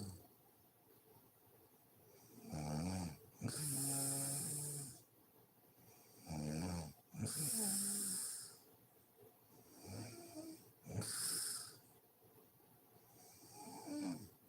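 A woman snoring in slow, regular breath cycles, three of them: each is a short pitched snore followed by a longer, airy breath with a strong hiss. The third cycle is weaker, and another snore starts near the end.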